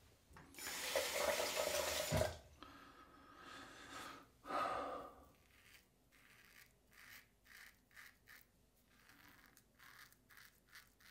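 Water running briefly, cut off with a sharp knock about two seconds in. From about halfway on, a King C. Gillette double-edge safety razor with a Feather blade scrapes through three-day stubble in short, faint strokes: the blade is tugging rather than gliding.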